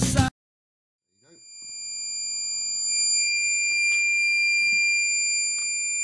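Small round buzzer on a breadboarded 555-timer door alarm sounding one steady, high-pitched continuous tone. It fades in about a second in, after a snatch of music cuts off. This is the alarm state: the reed switch has been open longer than the monostable's roughly 40-second period, so the logic turns on the buzzer.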